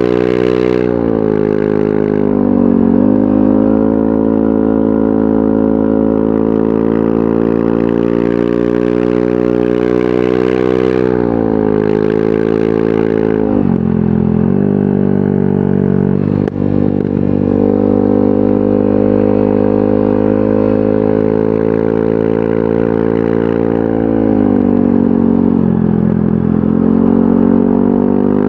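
Yamaha NMAX 155 scooter's single-cylinder four-stroke engine running through an aftermarket VMAX Onyx muffler while riding at a steady speed. Three times, about a second in, about twelve seconds in and near the end, the pitch drops as the throttle is eased off, then climbs back as it is opened again.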